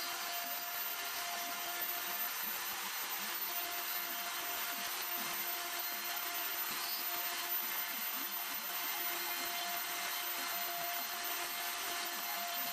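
CNC router spindle running steadily while a fine bit carves lettering into a softwood board: a constant pitched tone over an even cutting noise.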